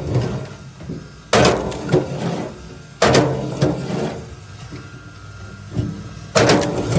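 Heavy wood being struck or split: three loud sudden cracks, about a second and a half in, at three seconds and near the end, each ringing out and fading.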